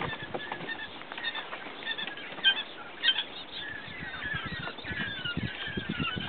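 Quail chicks peeping: many short, high chirps overlapping one another, with a few soft knocks underneath.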